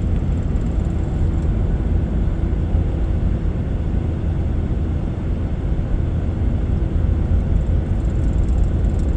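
Steady low rumble of a car driving along a cleared road, heard from inside the cabin: engine and tyre noise with no change in pace.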